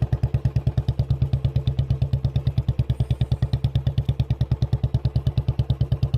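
Royal Enfield Bullet 350's single-cylinder four-stroke engine running at a steady cruise, its exhaust thumping about a dozen times a second. The owner calls the bike's sound a bit loud.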